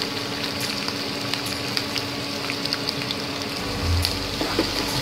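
Finely chopped onion, with garlic and curry leaves, sizzling in hot oil in a non-stick kadhai: a steady hiss with small crackles. Near the end a wooden spatula starts stirring, with a low knock.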